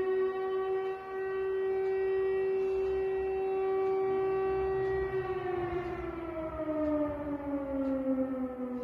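Civil defence air raid siren sounding an alert: one steady wailing tone that starts to fall in pitch about five seconds in and keeps sliding lower.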